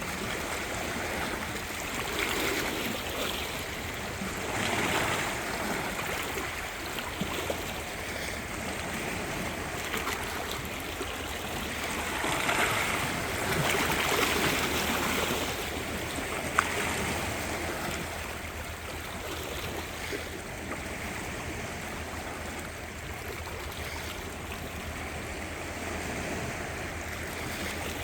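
Small sea waves washing onto the shore: a steady hiss of water that swells and eases every few seconds. There is one sharp click just past the middle.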